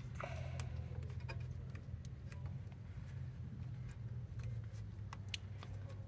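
Faint scattered clicks and taps of hands handling a plastic flasher relay and its wiring, over a steady low background hum.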